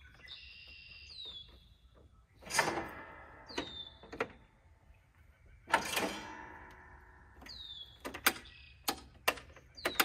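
Starter solenoid of a John Deere LA120 riding mower clicking and clunking as the key is turned, without the engine cranking. Two loud clunks with a short ringing tail, then several quicker clicks near the end. A short falling whistle, likely a bird, repeats every few seconds in the background.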